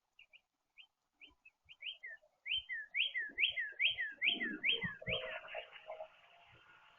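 A songbird singing a run of about a dozen clear whistled notes, each sliding downward, that start faint and grow louder and quicker before stopping about five seconds in. Low rustles and thumps come in over the last few notes.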